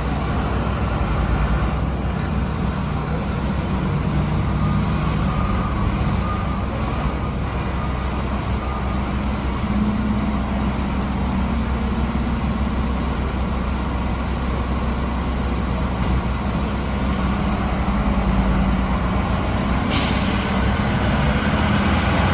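Fire truck's diesel engine running steadily at low revs as the ladder truck pulls out, with one sharp hiss of the air brakes near the end.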